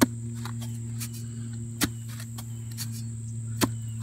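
Two-handled clamshell post hole digger driven down into the soil of a post hole: three sharp strikes, a little under two seconds apart.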